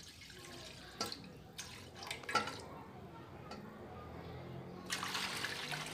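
Water splashing into an aluminium pot as it is poured from a glass jug, with a few light clinks; about five seconds in, a steadier hiss sets in.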